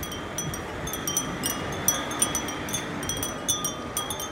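Many Japanese glass wind chimes (fūrin) tinkling, with irregular, overlapping high clinks that ring on briefly, over steady low background noise.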